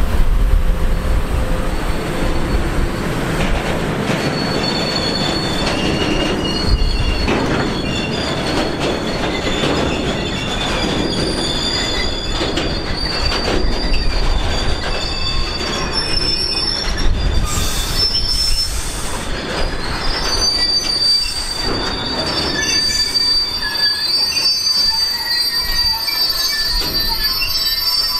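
Freight train of loaded open hopper wagons rolling past close by, a low rumble and rattle of wheels on rail, with high-pitched wheel squeal setting in a few seconds in and getting stronger toward the end.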